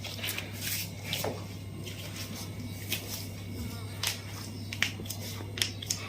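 Hands manipulating a patient's foot during a chiropractic tarsal adjustment: scattered soft clicks and rustles, about eight in six seconds, over a steady low hum.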